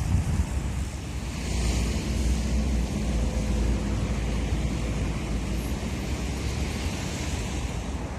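Steady outdoor noise: a low rumble with hiss, like wind buffeting the microphone.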